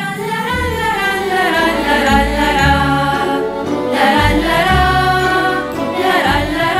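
Music with sung, choir-like voices over changing bass notes.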